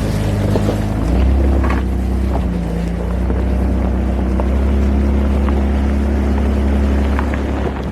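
2001 Jeep Cherokee XJ engine running as the Jeep drives a dirt trail, with scattered small knocks and rattles over it. The engine note shifts about a second in and drops away sharply near the end.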